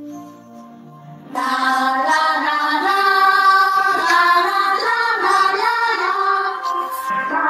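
Background music: a quiet instrumental passage, then about a second and a half in a song with singing voices comes in loudly and carries on.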